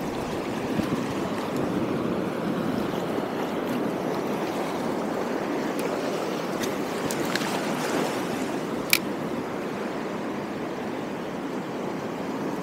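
Shallow sea surf washing steadily around a wading angler's legs, with a few faint clicks and one sharp click about nine seconds in.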